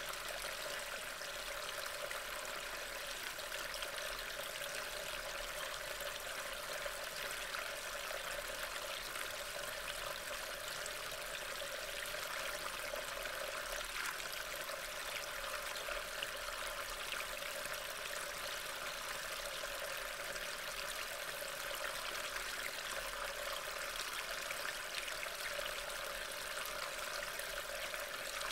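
Steady rain falling, an even hiss with a fine patter of drops, picked up by a trail camera's small built-in microphone and played back at double speed.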